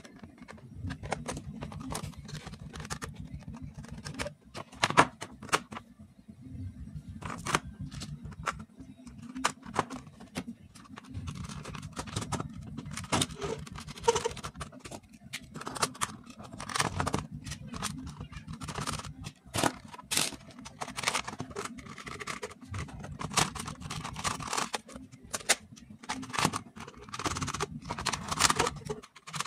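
Small screws being turned in with a hand screwdriver to fix switch modules and a fan regulator onto a plastic switch board, with many irregular clicks, scrapes and clatter as the plastic parts are handled and pressed into place.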